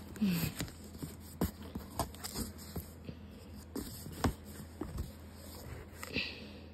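Cardboard box flaps being folded back and handled, with irregular rustles, taps and knocks as a plastic toy car inside the box is touched and shifted.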